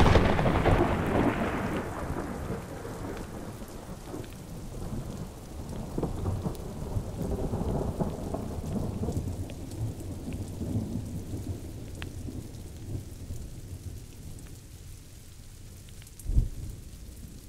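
A clap of thunder at the start, rolling off into a long low rumble over steady rain, with a second crack of thunder near the end.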